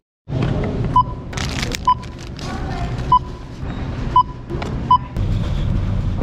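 Store checkout barcode scanner beeping five times at irregular intervals about a second apart, one short identical tone per item scanned, with bag and packaging rustling between the beeps.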